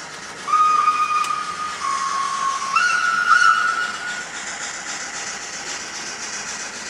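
Model steam locomotive's digital sound decoder playing a long steam-whistle blast. The pitch steps down and then up before the whistle stops about four seconds in. A steady steam hiss from the same decoder follows.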